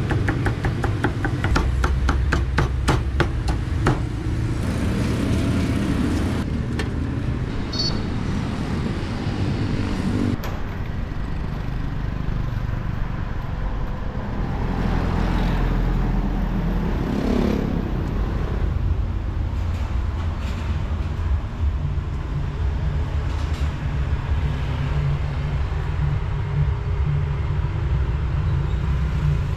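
Cleaver chopping roast pork on a round wooden chopping block: a rapid run of knocks that stops about four seconds in. After that, a steady rumble of road traffic and passing motorbikes.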